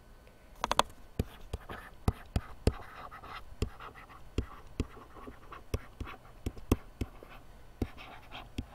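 Stylus writing on a pen tablet: irregular light taps and clicks with faint scratching as words are handwritten, with a cluster of sharper clicks just under a second in.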